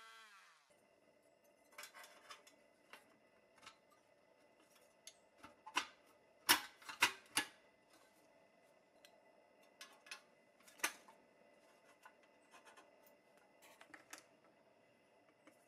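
A rotary tool spins down and stops at the very start. Then small bent steel sheet-metal brackets click and tap as they are handled and fitted against a pressed-steel Tonka truck frame, with a quick run of louder metal taps about six to seven seconds in.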